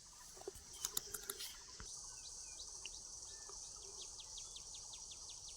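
Faint insects, cricket-like, chirping in an even pulse of about four ticks a second over a steady high hiss, starting about two seconds in after a few faint clicks.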